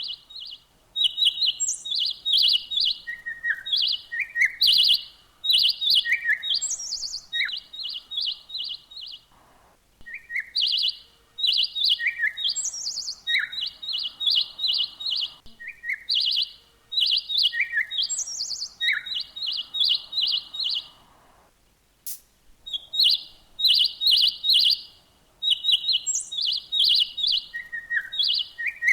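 Small songbirds chirping: quick runs of short high chirps repeated over and over, mixed with a few higher and lower single notes, with two brief pauses.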